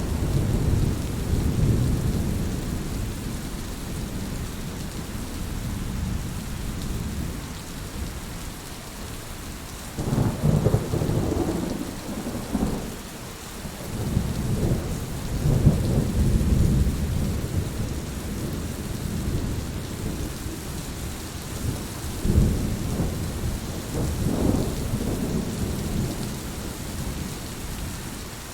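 Heavy rain falling steadily, with several rolls of low rumbling thunder that swell and fade over a few seconds each; the strongest come around the start, about ten seconds in, and again past the halfway mark.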